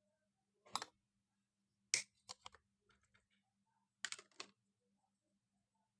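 Sharp clicking and snipping in three short bursts from a hand tool cutting and splitting thin electrical cable.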